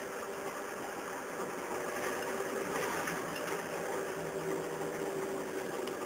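Small motorcycle engine running steadily while riding, a constant hum over an even rushing noise.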